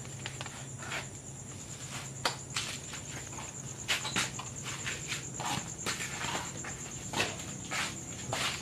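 Irregular footsteps and scuffs of people walking about, over a steady high-pitched insect trill and a steady low hum.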